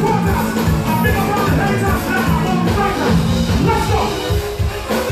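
Live band playing up-tempo soca with drum kit, bass and keyboard, amplified through a PA, with a steady driving beat.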